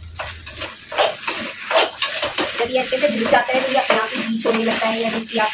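A metal spatula stirring and scraping sabudana khichdi around a kadhai as it fries in ghee, with a quick run of scrapes and clinks against the pan.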